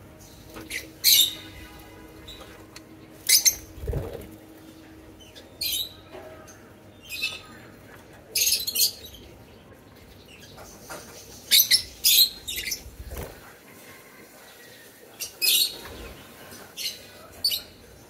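A flock of peach-faced lovebirds giving short, sharp, high-pitched chirps every second or two, with wings flapping as birds fly about the cage. There is a low thump about four seconds in.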